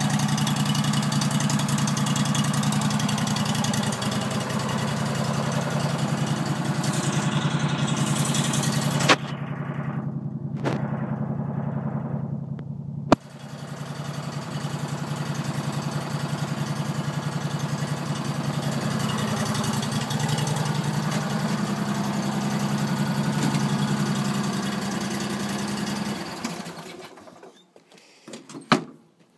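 Countax C800HE ride-on mower's engine idling steadily, with sharp clicks about nine and thirteen seconds in. Near the end the engine is switched off and runs down, followed by a few light clicks.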